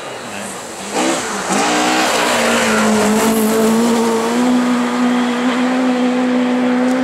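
Classic rally car passing close at speed on a snow stage. Its engine note dips about a second in, then climbs and is held steady at high revs. A loud hiss of tyres throwing up snow runs under it. Spectators afterwards take the car for a Fiat 124 Abarth.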